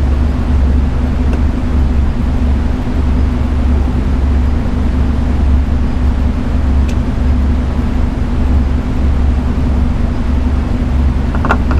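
Steady, loud low hum and rumble with no change in pitch, with a faint click about seven seconds in and a short, brighter sound near the end.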